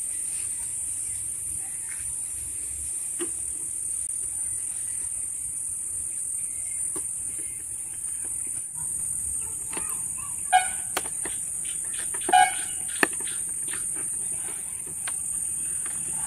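Steady high-pitched chirring of crickets, with scattered sharp clicks and a few louder metallic clinks about ten and twelve seconds in as the number plate's nuts and bolts are fitted to its bracket.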